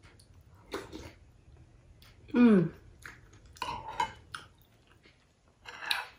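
Eating sounds: a metal spoon clinking and scraping in a glass bowl of congee, with chewing. A short falling vocal hum comes about two and a half seconds in.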